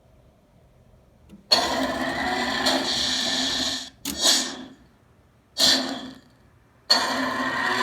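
3D printed Stargate model dialing. The inner ring runs with a whirring, motor-like sound for about two seconds, then come two short lock sounds a little over a second apart. The ring starts turning again near the end.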